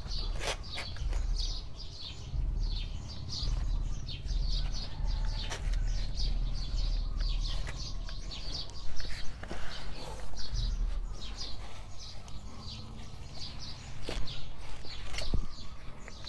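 Small birds chirping over and over throughout. A few sharper clicks and knocks come from hands working soil and plastic plant pots, the loudest of them around the middle and near the end.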